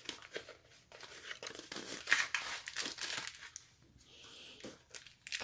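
Crinkling and rustling of a small plastic bag of mounting hardware and a little cardboard box being handled and opened by hand: irregular quick crackles and scrapes, busiest in the middle.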